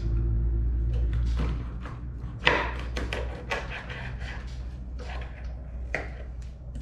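Knife chopping a catfish into large pieces on a cutting board: a run of knocks and clicks, the loudest a sharp strike about two and a half seconds in, over a steady low hum.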